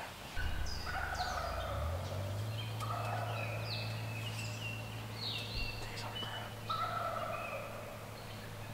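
Birds calling in spring hardwoods: short clear notes at several pitches, some notes falling, coming every second or so. A low steady hum comes in about half a second in and steps up in pitch over the next two seconds.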